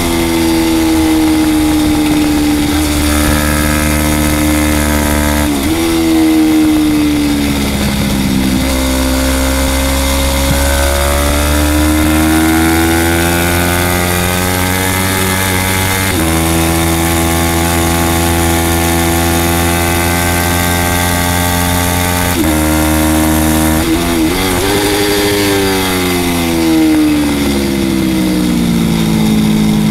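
A Yamaha YZF-R3's parallel-twin engine racing at high revs. Its pitch holds steady for stretches, then steps and sweeps up and down several times with gear changes and throttle through corners. Wind rush sounds over the onboard microphone.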